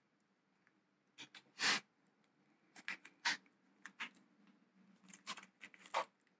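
Scattered short clicks and crinkles of a thin plastic plant pot being handled and turned in the hand, the loudest under two seconds in.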